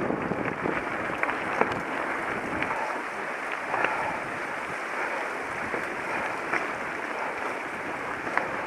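A mountain bike being ridden: a steady rush of tyre and wind noise with scattered sharp clicks and rattles.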